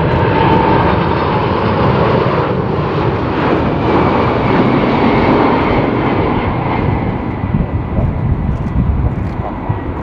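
Boeing 747-400 freighter's four Pratt & Whitney PW4056 turbofans passing low on landing approach: a loud, steady jet rush with a thin fan whine, easing off a little over the last few seconds.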